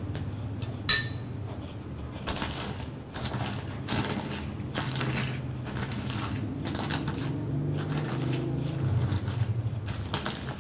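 Stone pestle pounding and crushing fried chicken with sambal in a wooden cobek, a dull hit about once a second. About a second in, a single sharp clink of a metal spoon against a plate.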